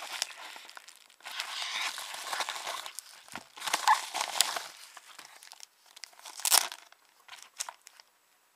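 A mailed package being torn open and its packaging crinkled by hand: stretches of rustling and tearing with a few sharp crackles, thinning to scattered small crackles near the end.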